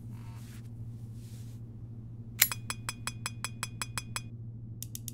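Clockwork automaton's mechanism starting up: a regular run of sharp mechanical clicks, about six a second, beginning about halfway in, then a short pause and a faster run of clicks just before the end, over a low steady hum.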